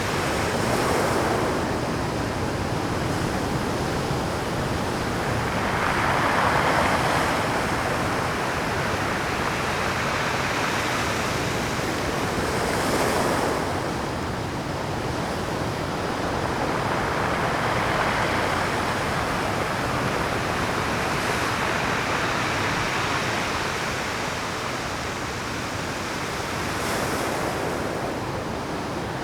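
Rough Pacific surf breaking against shore rocks, a continuous wash of water that swells every five or six seconds as each wave comes in.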